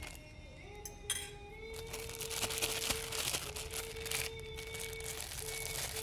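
Plastic bag crinkling and rustling as it is handled and a soft mixture is pushed into it, starting about two seconds in. Background music with long held notes plays underneath.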